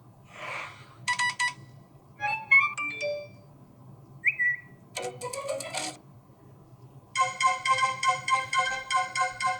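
iPhone SE 2022 notification tones played one after another from the phone's speaker: a short swoosh, a bright chime, a quick run of pitched notes, a brief rising chirp and a noisy burst, then from about seven seconds in a rapid repeating pattern of bright tones at about four a second.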